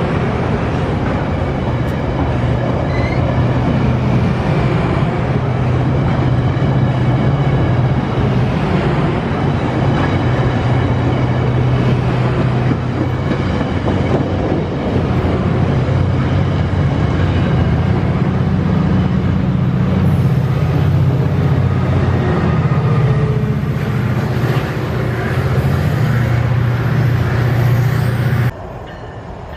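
Virginia Railway Express commuter train of stainless-steel bilevel passenger cars rolling past the platform, a steady low drone under the running noise of its wheels on the rails. The sound cuts off abruptly near the end.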